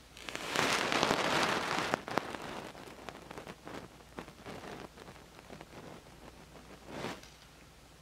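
Rustling and scratching of a hand and small round brush working on watercolour paper: a longer rustle about half a second in, then faint scattered ticks, and a short rustle near the end.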